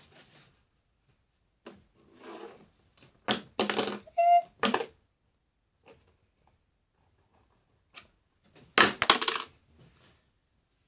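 Sudden clattering and rattling, like hard or metal objects being handled, in two loud spells a few seconds apart, with a short squeak in the first spell and a few light clicks between.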